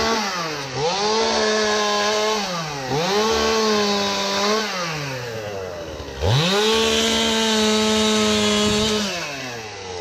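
Two-stroke chainsaw run at full throttle three times, each time rising quickly to a steady high pitch, held for about one and a half to three seconds, then falling off as the throttle is released.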